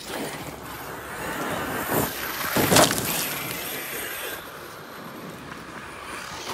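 Large brushless electric RC monster trucks driving on a loose dirt track: motor whine and tyres scrabbling on dirt, swelling to its loudest a little before halfway.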